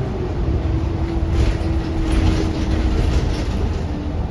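Cabin noise of a New Flyer XD40 diesel city bus under way: a steady low engine and road rumble with a faint whine that falls slightly in pitch as the bus slows for a stop. There is a patch of hissy rattle in the middle.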